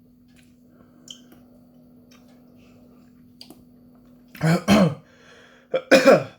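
A man's voice making two short wordless exclamations, with a falling pitch on the second, as he reacts to the burn of a super-hot chilli. Before them there is a faint steady hum for a few seconds.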